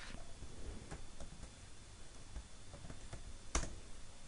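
Faint keystrokes on a computer keyboard: a few scattered taps, with one sharper click about three and a half seconds in.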